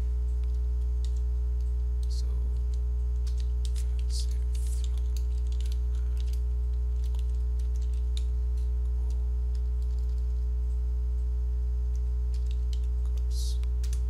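Computer keyboard typing in scattered keystrokes over a loud, steady electrical mains hum.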